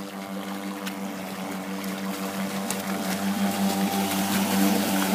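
Two-stroke 26cc gas engine of a 51-inch R/C speedboat running flat out at a steady pitch, growing louder as the boat approaches.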